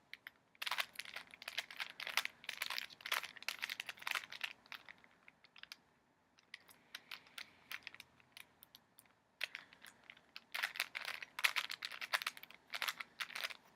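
Rubik's cube being twisted quickly by hand, a rapid run of plastic clicks and rattles as its layers turn. The turning pauses for a few seconds midway, then resumes in another quick burst.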